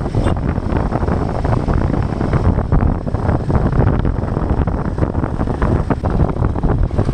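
Royal Enfield Himalayan 450's single-cylinder engine running under way while riding, its exhaust pulsing steadily, with heavy wind noise on the microphone.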